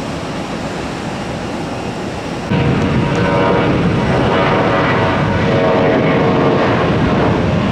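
Jet airliner engines running, a steady rumble with a whine over it, jumping suddenly louder about two and a half seconds in.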